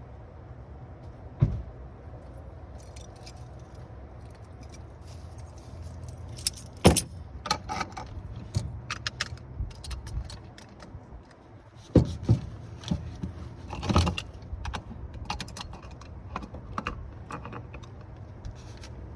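Hand tools on metal fuel fittings: scattered clinks, clanks and sharp knocks of a wrench as the conversion kit's gas fittings are tightened, over a steady low hum.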